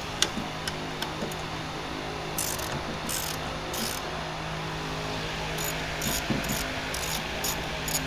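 Ratchet wrench clicking in several short strokes, over a steady low hum.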